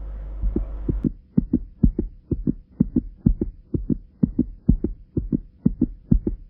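Rapid, evenly spaced low thumps, about four or five a second, from a pulsing beat laid over the end card. They start about a second in, after a low steady rumble.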